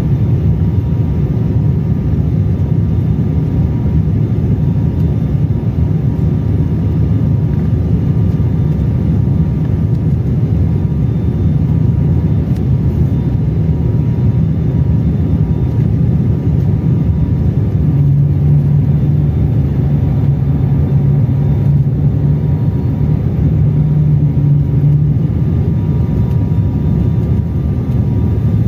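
Cabin noise of an ATR turboprop airliner during its landing approach: a steady low propeller and engine drone with faint higher tones over it, the low hum growing stronger for several seconds past the middle.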